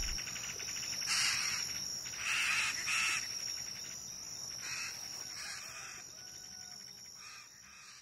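Rainforest insects calling: short, repeated buzzing trills over a steady high-pitched whine, slowly fading out.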